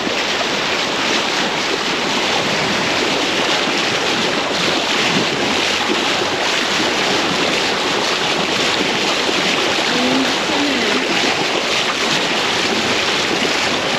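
Steady rush of sea water and waves, with wind on the microphone.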